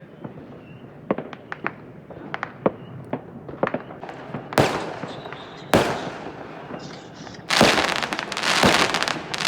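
Fireworks and firecrackers going off: scattered sharp cracks, two loud bangs about halfway through, then a dense run of crackling near the end.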